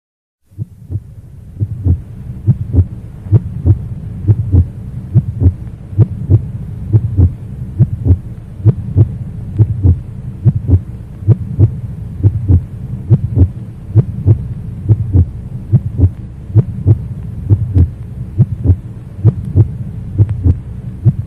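A heartbeat sound effect: low thumps repeating at a steady quick pace over a low hum, starting about half a second in after a brief silence.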